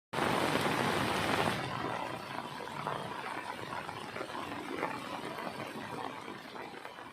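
Rain falling, a steady hiss of water, loudest for the first second and a half and then slowly fading out.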